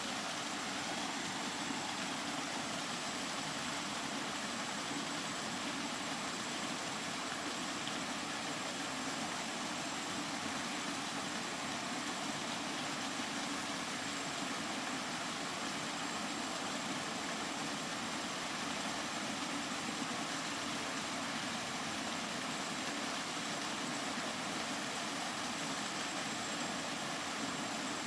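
Steady, unbroken rain sound used as white noise: an even hiss with no single drops, thunder or changes standing out.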